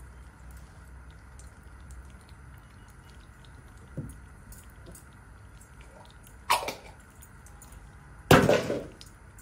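Ghee melting in a pot on a gas stove, a faint steady hiss, broken by a short sharp knock about six and a half seconds in and a louder sharp clatter near the end.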